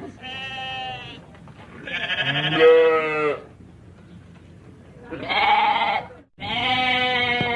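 Sheep bleating: four separate bleats, each about a second long, with short pauses between them.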